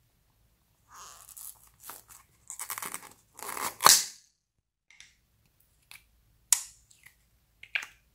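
Small plastic slime tub being opened: the lid crackles and scrapes as it is worked loose, then comes off with a sharp pop about four seconds in. A few light plastic clicks and taps follow as the open tub and lid are handled.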